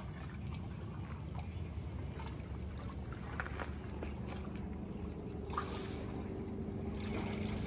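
Boat engine running with a steady low hum, with water trickling and splashing around it; a brief louder rush of water about five and a half seconds in, and another near the end.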